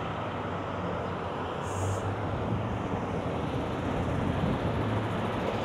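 Steady noise of passing road traffic, tyres and engines, with a low hum that swells briefly a couple of times.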